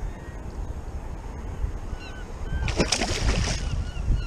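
A hooked fish thrashing and splashing at the surface right beside a kayak, a short burst of splashing just under three seconds in, over a low rumble of wind and water.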